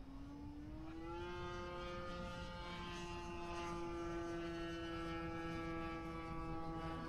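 Electric motor and propeller of an E-flite Cherokee 1.3m RC plane in flight, heard from the ground as a steady droning whine. Its pitch rises over the first second or so, then holds steady while it grows slightly louder.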